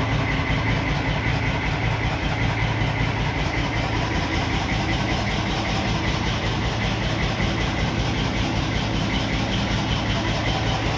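An engine running steadily at idle: an even low hum with a faint high steady whine above it.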